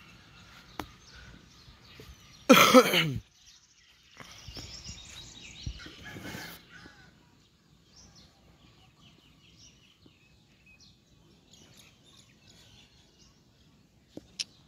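A goat bleats once, loudly and with a wavering pitch, about two and a half seconds in; otherwise only a quiet outdoor farmyard background.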